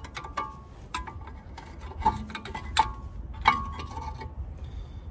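Screwdriver tapping and levering a worn front brake pad out of a TRW brake caliper: a string of irregular sharp metallic clinks, several ringing briefly.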